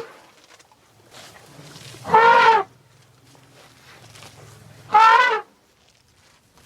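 Elephant trumpeting: two short, high, horn-like calls about three seconds apart, each about half a second long, with a faint low hum between them.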